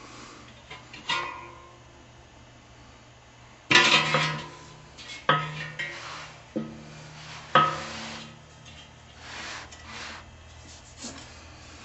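A series of metal clanks and knocks, each with a short ringing after it, the loudest about four seconds in: the metal blade and grille of a 1965 Emerson table fan being handled as it is taken apart.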